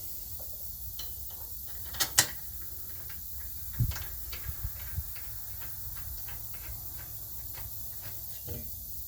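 Hand tools and metal parts clicking and knocking during work on a car's rear wheel hub: two sharp clicks about two seconds in and a short run of knocks around four seconds in, with faint scattered ticks over a steady low hum.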